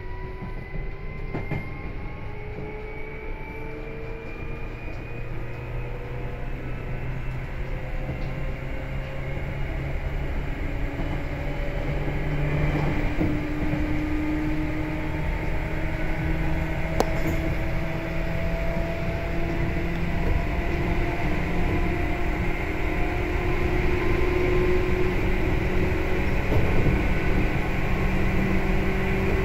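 Seibu 2000 series electric train accelerating: its traction motors and gears whine in several tones that slowly rise in pitch over the steady rumble of the wheels on the rails, growing gradually louder.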